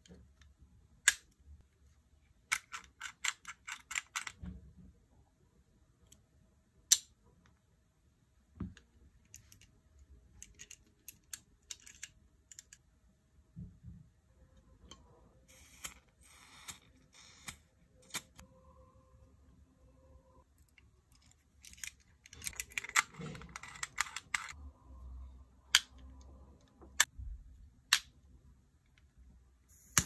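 Metal cigar torch lighter being handled: sharp clicks and small metallic clinks from its lid and detachable keychain parts, with quick runs of clicks about three seconds in and again about twenty-two seconds in.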